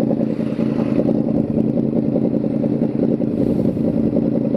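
Yamaha sport bike's engine idling steadily with an even, unchanging low pulse.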